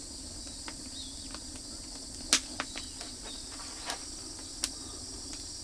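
Steady high-pitched chirring of crickets, with a few sharp crackles from the oak wood fire; the loudest crackle comes a little over two seconds in.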